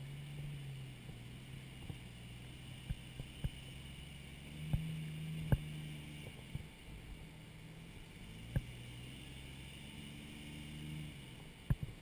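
A Jeep's engine running at low crawling speed on a rock ledge, revving up and easing off a couple of times as it climbs. Several sharp knocks are scattered through it, the loudest about five and a half and eight and a half seconds in.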